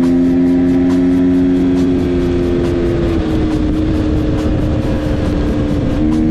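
KTM dirt bike engine running at speed under the rider, a steady buzzing note over a rushing noise; the pitch drops slightly about three seconds in and dips briefly near the end before picking up again.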